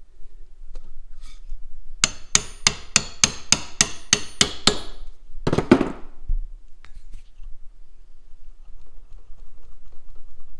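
A steel chisel wedged in a throttle-cable end fitting held in a bench vise is struck in a quick run of about a dozen sharp metal-on-metal taps, about four a second, each ringing briefly, then a single louder, longer clatter. The work is meant to spread open the anodized cable end, which is too tight to fit the pedal.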